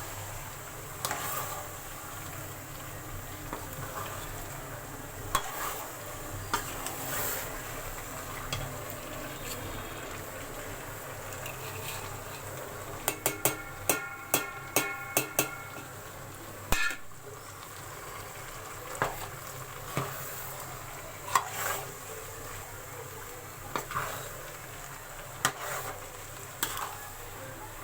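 Grated-carrot halwa being stirred and scraped around a metal cooking pot, with a low sizzle underneath and scattered knocks of the spoon on the pot. About halfway through comes a quick run of ringing metallic taps, roughly four a second.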